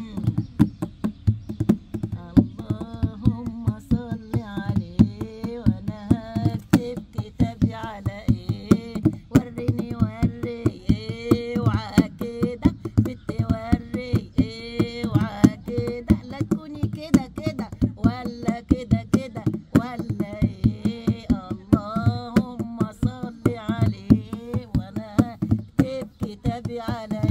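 A woman singing in Arabic while beating a steady, quick rhythm on an Egyptian tabla (goblet drum, darbuka) with both hands.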